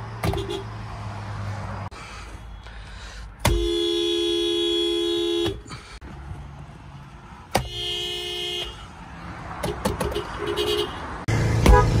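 Toyota car horns sounded from inside the cabin, each honk two notes together: a blast of about two seconds starting about three and a half seconds in, a one-second honk near eight seconds, and a short loud honk near the end.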